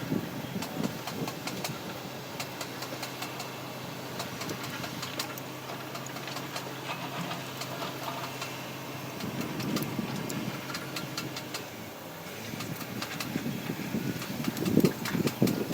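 Komatsu PC200 excavator's diesel engine running steadily with a low hum and fine rapid ticking; the hum drops away about three-quarters of the way through, then heavier low rumbling picks up near the end.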